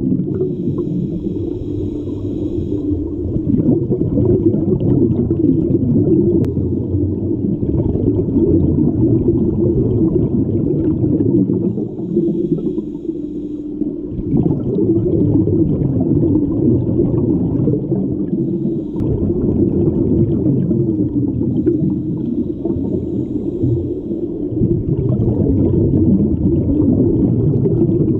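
Underwater sound of a scuba dive heard through an action camera's waterproof housing: a steady, muffled low rumble that swells and fades every few seconds. Brief hissy bubbling comes through a few times, from divers exhaling through their regulators.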